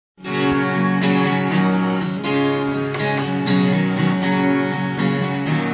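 Acoustic guitar strummed in a steady rhythm, the chords changing every second or so.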